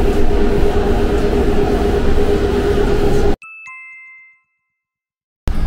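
Steady, loud shop noise with a low hum cuts off abruptly. A two-note chime jingle follows, the second note lower, each ringing out briefly before fading to silence.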